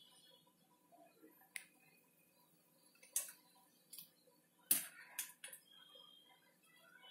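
A wire mesh skimmer clinking against a pot of boiling corn kernels as they are stirred and lifted: about half a dozen light, scattered clinks, the loudest about five seconds in.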